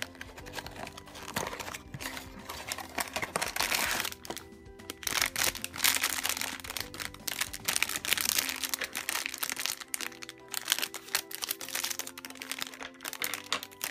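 A metallic foil blind-box bag crinkling and rustling as hands handle and open it, with the cardboard box flap rustling at the start, over steady background music.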